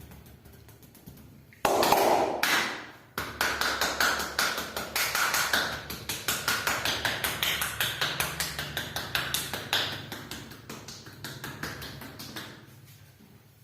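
Hands striking the body in a fast, rhythmic percussive massage, about five or six slaps a second, growing fainter until they stop near the end. They follow a loud, noisy burst about two seconds in that fades over a second or so.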